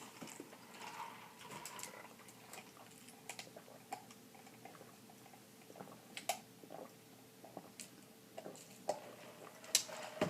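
Person chewing food close to the microphone, with scattered short clicks and wet smacks from biting and chewing.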